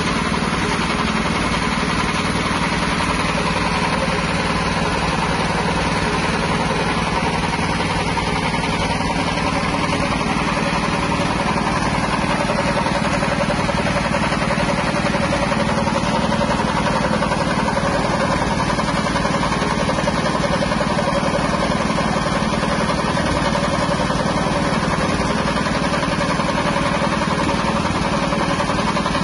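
A 5.5 hp petrol engine running steadily, driving a horizontal screw-type pellet extruder as it presses out feed pellets.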